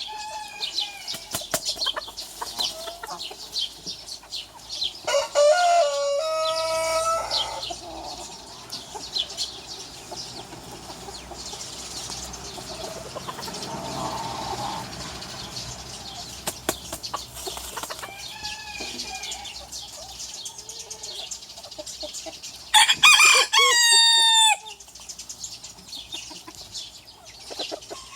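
Roosters crowing twice, about five seconds in and again near the end, the second crow higher-pitched and louder. Chickens cluck in between.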